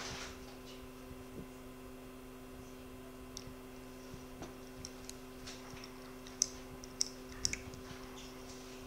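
Phacoemulsification machine sounding a steady two-note tone while its handpiece aspirates inside the eye. Scattered sharp clicks come through, several louder ones bunched near the end.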